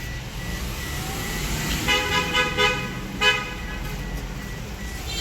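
Vehicle horn honking in short toots, a quick burst of about four about two seconds in and one more a second later, over steady low traffic noise.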